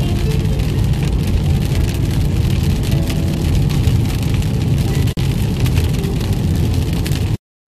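Rain drumming on a moving car, heard from inside the cabin: a steady rush of rain on the windscreen over deep road and engine noise. The sound cuts off abruptly near the end.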